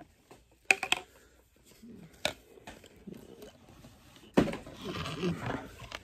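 Toy packaging being handled as parts are clipped out: a few sharp clicks, then rustling from about four seconds in.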